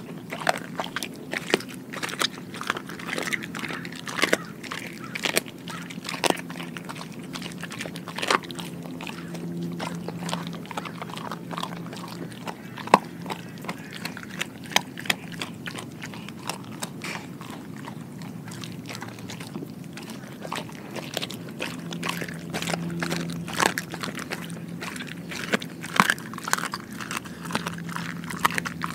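A Doberman chewing and crunching through a whole raw Cornish hen, bones cracking in irregular sharp bites. The bites come thickest in the first several seconds and again near the end, with quieter chewing between.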